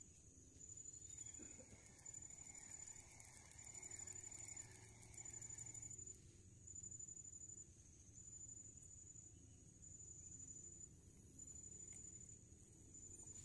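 Near silence with faint insect chirping: a high, steady trill repeated in pulses of about a second with short gaps between them.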